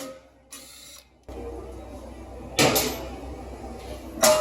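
Two sharp metallic clanks about a second and a half apart, each with a short ring, from hammering or handling the steel rear brake rotor.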